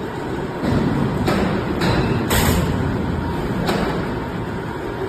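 SQB380Y tyre bead-ring removal machine running: a steady mechanical rumble, with about five short surges of harsher noise in the first four seconds.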